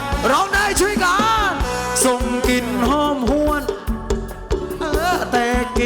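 Live Thai ramwong band music: a sliding, bending melodic lead over a steady drum beat, between sung verses.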